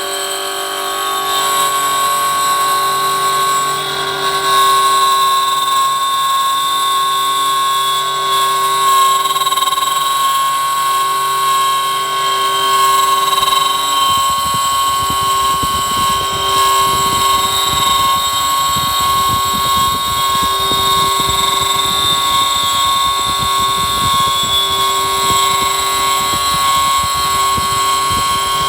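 Lathe running with its leadscrew driven by a stepper motor at 400 steps per second, a steady whine with several held tones as the carriage feeds a threading cut. About halfway through a rough low rattle joins in under the whine.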